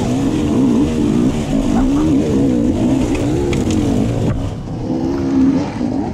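Enduro dirt bike engine revving up and down without pause, its pitch rising and falling every fraction of a second as the throttle is worked over rough ground.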